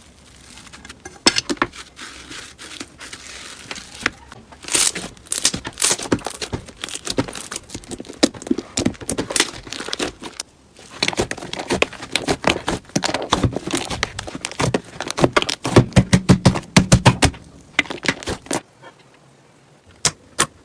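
Slime being squeezed and poked by hand, making dense runs of sticky clicks and crackles. The runs are loudest in the second half and stop shortly before the end.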